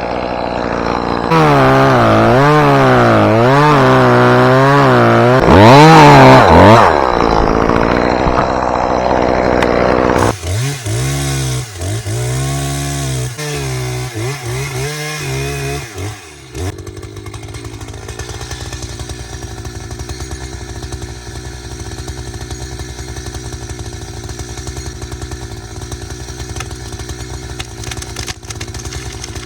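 Two-stroke chainsaw cutting, its pitch dipping and climbing again and again as the chain bites and frees, loudest about six seconds in. After about ten seconds it runs at a lower pitch with short breaks, and from about seventeen seconds it settles into a quieter, steady low running.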